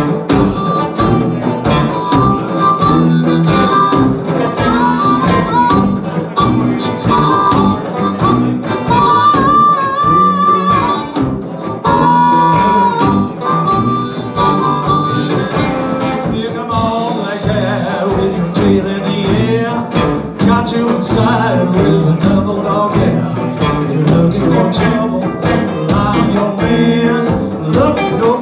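Live blues band playing a rumba in G, with a harmonica playing the lead in held and bent notes over electric guitars, bass and drums.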